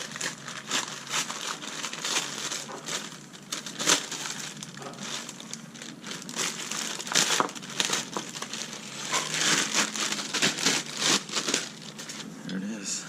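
Packaging crinkling and crackling in irregular bursts as a new OEM engine mount is unwrapped and handled.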